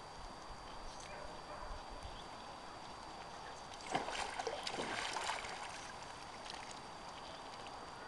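A Canada goose dipping its bill into the pond water at the bank's edge, with a brief splash and slosh about four seconds in that lasts a second or so, over a steady background hush.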